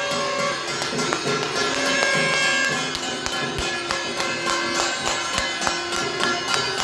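Many metal pots, pans and plates being banged at once: a dense, steady clatter of strikes over ringing metallic tones.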